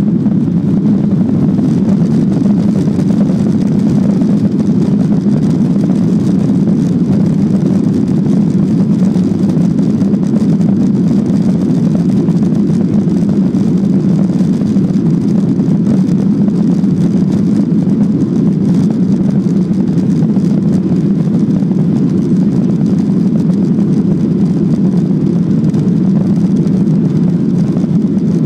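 Steady airliner cabin noise, the drone of engines and airflow heard from inside the passenger cabin, unchanging throughout.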